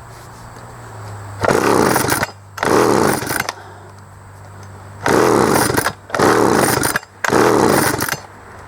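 Homelite 350 chainsaw's two-stroke engine firing in five short bursts of under a second each, dropping back between them. It catches but won't keep running, which the owner takes for fuel starvation with good spark.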